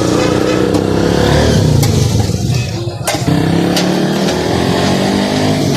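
An engine running nearby, its pitch drifting up and down a little, with a few sharp clicks.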